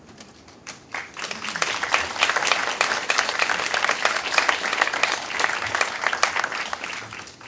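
Audience applauding: a few scattered claps, then the applause swells about a second in, holds steady and dies away just before the end.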